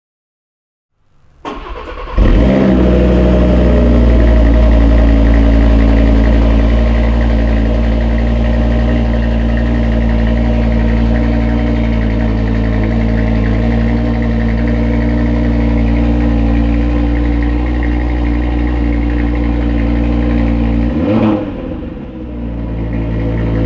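Audi TT RS 8S's turbocharged 2.5-litre five-cylinder engine with the stock exhaust and petrol particulate filter, cold-started: about a second of starter cranking, then it catches loudly about two seconds in and settles into a steady idle. Near the end the pitch briefly rises, then dips before steadying again.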